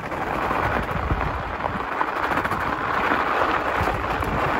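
Steady rushing rumble of a fat bike being ridden on a snowy trail: wind on the handlebar microphone, and the fat tyre crackling over packed snow.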